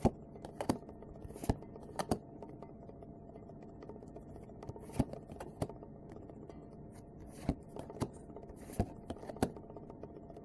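Trading cards being handled and leafed through: scattered short clicks and snaps of card edges, irregularly spaced, over a faint steady background hum.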